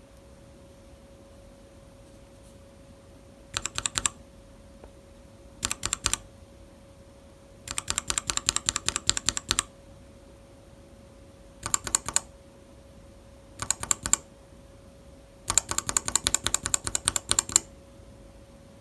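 Mechanical keyboard switches being typed on in six short bursts of rapid keystrokes, separated by pauses of a second or two. The longer runs come about eight seconds in and near the end.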